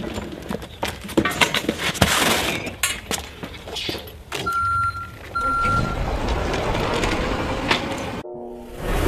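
A metal hand truck and cardboard boxes rattling and knocking on concrete, a quick run of knocks and clatter. About halfway through there are two short high beeps, followed by a steady hiss.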